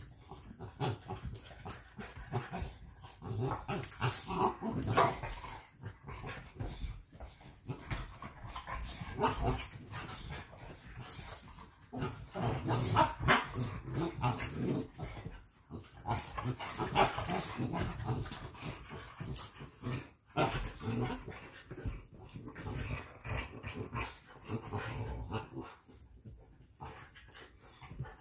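Boxer dogs play-fighting: dog vocal noises mixed with scuffling come in irregular bursts, separated by short lulls.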